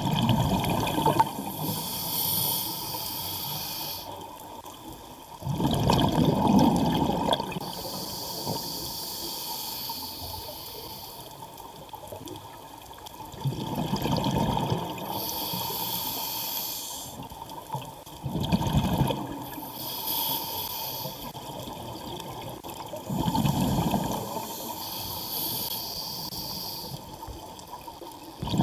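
Scuba diver breathing through a regulator underwater: a high hiss on each inhale alternates with a low rumble of exhaust bubbles on each exhale, about every five seconds.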